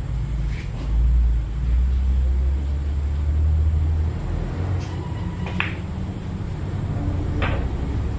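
A deep low rumble that swells about a second in and eases off after about four seconds, with two short sharp clicks later on.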